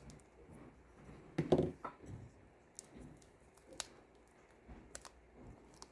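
Faint handling noises of hands working on a laptop's display assembly: scattered light clicks and taps, with a brief louder rustle about a second and a half in.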